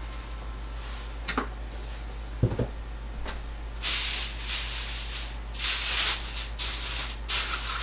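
Aluminium foil crinkling in several loud, rough bursts from about four seconds in as it is handled and spread on the counter. Before that, a light knock and then a short low thump near the middle.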